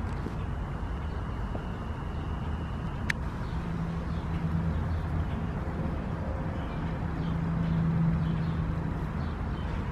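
Steady low outdoor rumble, swelling about halfway through and again near the end, with one short sharp click about three seconds in.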